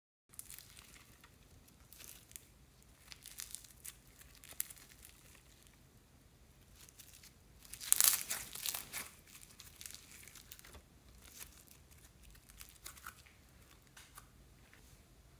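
Yellow floam (foam-bead slime) squeezed and pulled apart by hand, with sticky crackling and tearing. The loudest, densest crackling comes about eight seconds in, as a strip is torn away.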